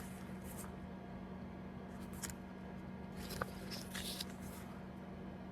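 Faint paper rustles and a few small ticks from a photo book's pages being turned and handled, over a steady low hum.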